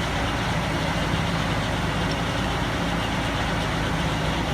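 A heavy engine running steadily at an even speed under a continuous wash of noise.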